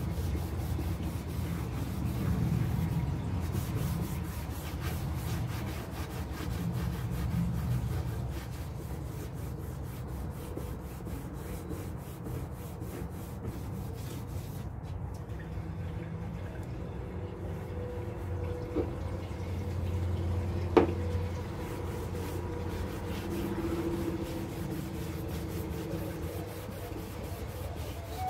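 Cloth rag rubbing and wiping over a painted wooden cupboard door, working hemp salve over black wax. There are two short knocks about two-thirds of the way through, the second sharper and louder.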